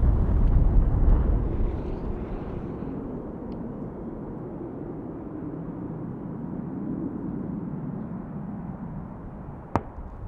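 Jet airliner engine roar fading away, leaving a steady low rumble. A single sharp click near the end.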